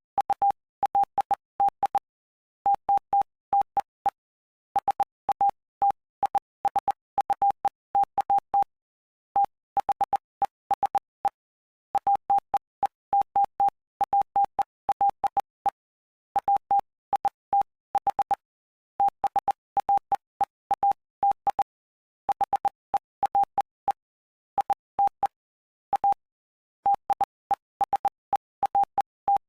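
Morse code sent as a single steady mid-pitched tone keyed on and off in short dots and longer dashes, with brief gaps between letters and longer pauses between words, spelling out Bible text for code practice.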